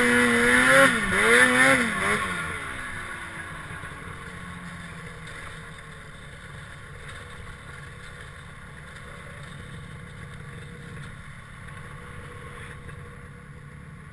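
Snowmobile engine revving in wavering surges, then easing off about two seconds in, its pitch sliding down, and settling to a quiet, steady low run.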